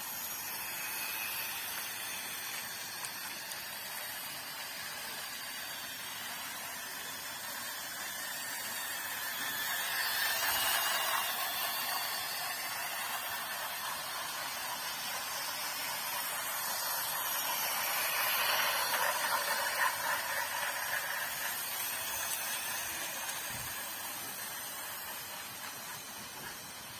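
Battery-powered toy trains running on plastic track: a steady whirring hiss of small motors and gears that swells twice, about ten seconds in and again near twenty seconds.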